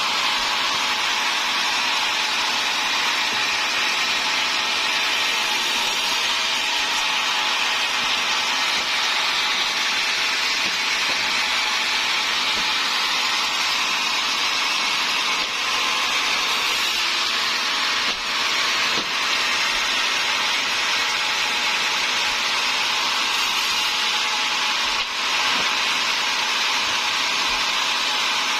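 Sawmill saw running steadily through timber being cut into rafter stock, with a couple of brief dips partway through.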